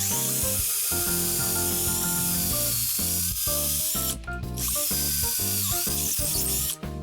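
A power tool running in two stretches with a steady high hiss: about four seconds, a short break, then about two seconds more. Background music plays underneath.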